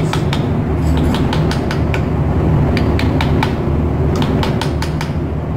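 Sharp metal taps in a quick, irregular run as a ball bearing is tapped down onto a cargo oil pump shaft. Under them runs a steady low machinery hum.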